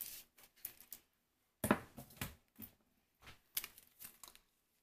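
Plastic spice bottle shaken over a foil pan of ribs, its seasoning rattling out and pattering onto the meat in three or four short bouts of quick clicky shakes.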